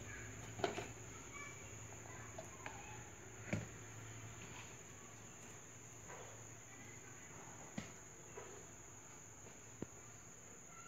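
A few light knocks of plastic bowls being set down on a cardboard incubator lid, the two loudest in the first few seconds. They sit over a steady high-pitched whine and a low hum.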